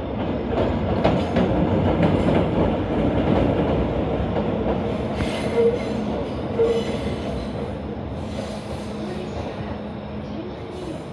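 A locomotive-hauled delivery train of new Tokyu 5080-series cars, led by a hybrid locomotive, rolling past at low speed. The wheels clack over the rail joints at first, with a couple of short wheel squeals about halfway through, and the noise fades toward the end as the train moves away.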